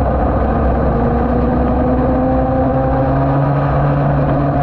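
Yamaha TD1B two-stroke racing motorcycle engine heard from onboard, held at steady revs through a corner, its pitch sagging slowly.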